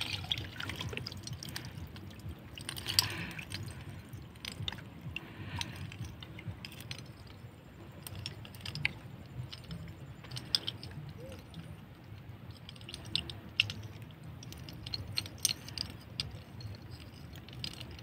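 Wet lake plants being pulled and handled in shallow water: irregular small splashes, drips and rustles of wet stems, over a steady low rumble.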